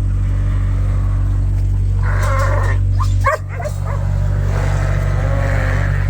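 Animals calling: a pitched call about two seconds in, a quick run of short high calls about a second later, and a longer call near the end. Under them runs a steady low mechanical hum.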